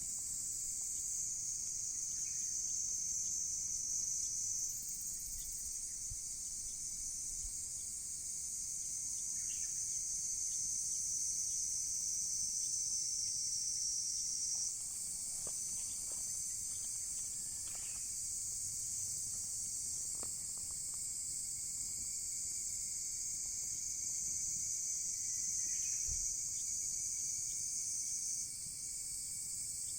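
Steady high-pitched chorus of crickets, with a thinner, lower steady insect trill beneath it. A few faint crackles from the burning driftwood fire come at scattered moments.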